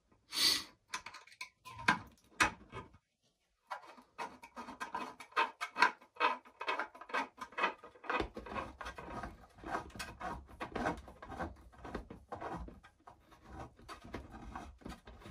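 Small screwdriver turning M3 grub screws by hand into an SLS-printed nylon truck cab: irregular small clicks and scratchy rubbing of metal on plastic, with a short break about three seconds in.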